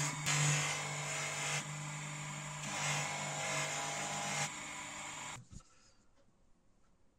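An electric grinding machine running with a steady motor hum while the steel of a forged gouge is worked against it, the grinding hiss swelling and easing in three passes. The sound stops suddenly a little over five seconds in, leaving only faint ticks.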